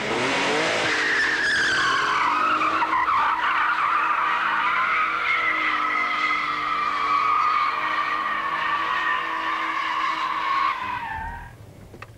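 Vauxhall Omega's rear tyres squealing in a long wheelspin with the traction control switched off, the engine running hard underneath. The squeal holds steady for about eleven seconds, dips slightly in pitch early on, then dies away near the end.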